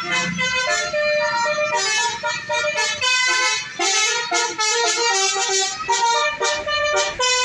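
Basuri 'telolet' bus horn playing a tune: a steady run of held, buzzy notes stepping up and down in pitch one after another.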